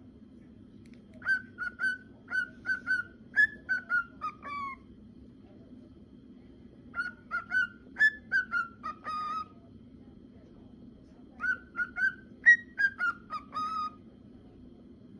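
Cockatiel whistling its song in three phrases, each a quick run of short whistled notes that steps down in pitch at the end.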